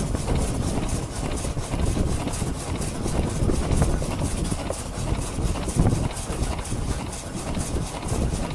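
Belt-driven wooden sash sawmill running, its crank and reciprocating saw frame clattering in a fast, even rhythm over a low rumble.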